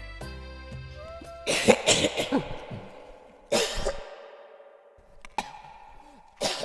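Soft background music trails off, then a person coughs in a fit of several harsh coughs, with one more cough about two seconds later. After a sudden drop to silence, a faint steady hum is heard.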